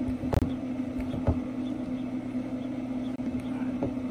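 Steady motor hum of a Traeger pellet grill running, with two sharp clicks in the first second and a half as a hand-pumped hydraulic wire crimping tool is worked to swage a cable fitting.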